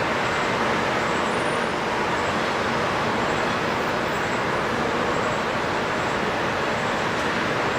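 Steady rush of flowing water, an even unbroken roar, with faint high chirps repeating about twice a second.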